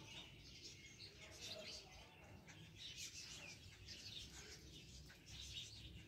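Faint bird chirping: many short, high chirps and twitters, close together.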